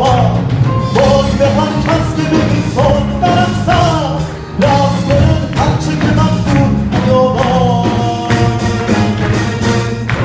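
Live band music with a male singer singing a melody over drums, piano and guitar, with a steady beat.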